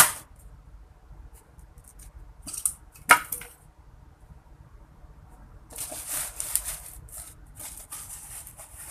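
Computer-case packaging being handled and pulled at. A single sharp click comes a little after three seconds, then scratchy rustling starts near the middle and carries on to the end.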